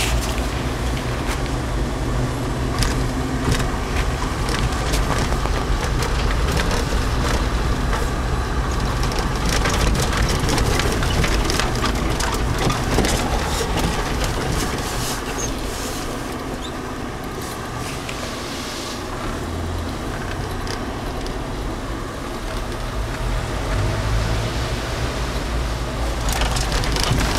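Mercedes-Benz G-Class engine and drivetrain running steadily, heard from inside the cab as the vehicle drives over a rough, wet road, with many short knocks and rattles over the engine drone. It grows somewhat quieter for several seconds past the middle, then picks up again near the end.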